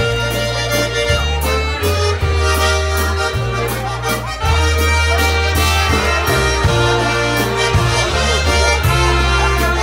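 Live polka band playing a waltz: accordion carrying the tune, with trumpet and saxophone and a bass line moving in long held notes.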